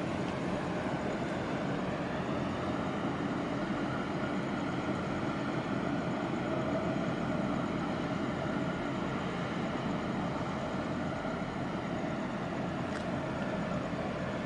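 Harbour tug's diesel engines running with a steady drone.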